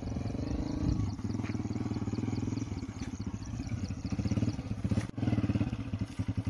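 A 125 cc motorcycle's engine running as the bike rides slowly up, with a steady, even beat; after a short break about five seconds in it carries on at the same even beat, idling.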